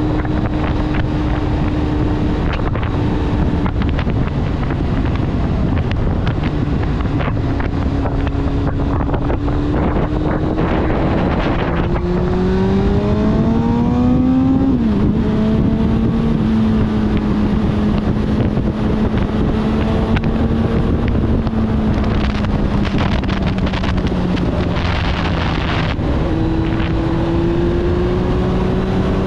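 Kawasaki ZX-9R motorcycle's inline-four engine under way, with wind rushing over the helmet microphone. The engine note climbs, drops sharply at a gear change about halfway through, holds steady, and rises again near the end.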